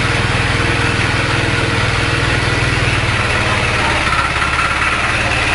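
Small 5.5 hp single-cylinder petrol engine running steadily under load, driving a horizontal pellet mill as it extrudes feed pellets through its die.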